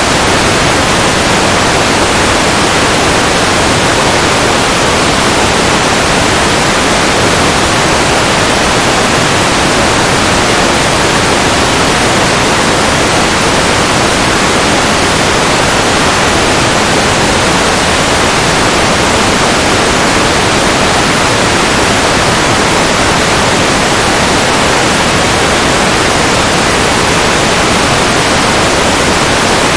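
Loud, steady static hiss from an FPV headset's analog video receiver. It is the sign of a lost or absent video signal, with the receiver picking up only noise.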